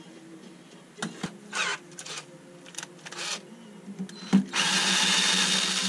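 Cordless drill/driver running steadily for about a second and a half near the end, driving a socket cap screw into the mill spindle's bearing cover. Before it, a few short clicks and scrapes of the hex bit being fitted into the steel screw heads.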